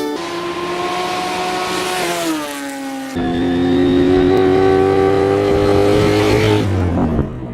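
Motorcycle engine running under way: the revs drop about two seconds in, then an abrupt change to a louder, steady engine note that drops away near the end.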